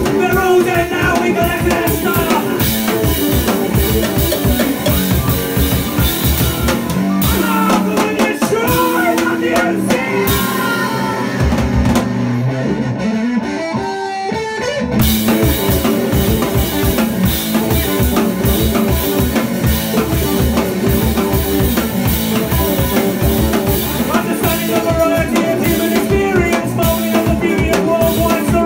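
Indie-punk band playing live on electric guitars, bass and drum kit. About twelve seconds in the drums drop out for a few seconds, leaving the guitars, and the full band comes back in.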